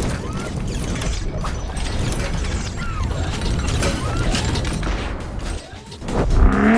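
Intro sound effects of machine parts: a dense run of ratcheting, clicking and clanking mechanical noises, then a loud hit with a ringing tone about six seconds in.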